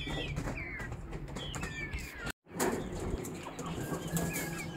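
Young Aseel chicks peeping in short repeated chirps inside a wire cage, with scattered light knocks and rustling. The sound cuts out completely for a moment about halfway through.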